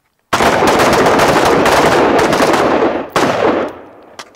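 A line of carbines firing together, their rapid shots overlapping into a dense volley that starts about a third of a second in and thins out to a few scattered shots near the end.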